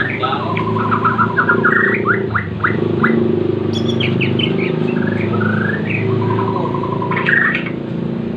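Bornean white-rumped shama (murai Borneo) singing the rapid-fire 'tembakan' phrases it copies from prinias: fast strings of short repeated notes that step up into rising whistles, once near the start and again about six seconds in. A steady low hum runs underneath.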